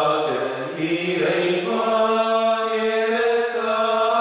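A voice singing a slow devotional chant, its pitch moving at first and then settling into long held notes.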